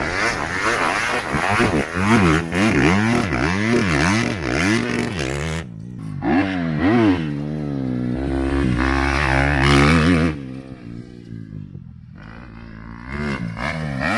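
Motocross dirt bike engine revving up and down over and over as the rider works the throttle around the track. It drops to a quieter stretch about ten seconds in, then revs up again near the end.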